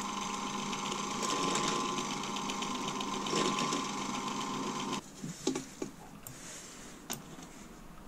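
Clarke bench drill running, its 10 mm bit cutting through 3 mm aluminium plate with a steady motor hum. The motor cuts off suddenly about five seconds in, and a few light clicks follow.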